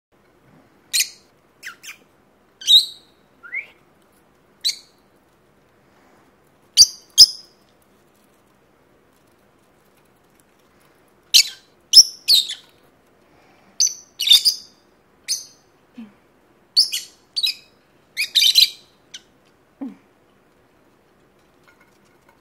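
Peach-faced lovebirds chirping: short, sharp, high chirps, a few at a time, with a pause of a few seconds in the middle and a quicker run of chirps in the second half.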